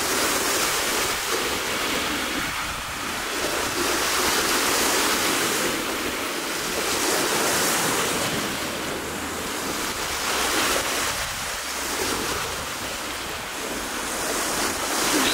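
Steady rushing noise of wind and sea surf, swelling and easing every few seconds.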